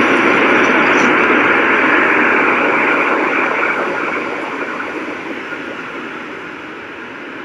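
Strong blizzard wind blowing as a loud, even rush that eases off steadily through the second half.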